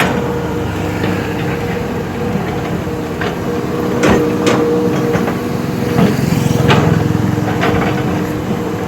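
A heavy diesel machine running steadily, with a few sharp clanks about four seconds in and again around six to seven seconds.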